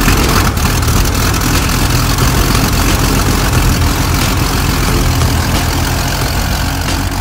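Extra 300L's six-cylinder Lycoming aircraft engine running steadily at idle just after start-up, propeller turning.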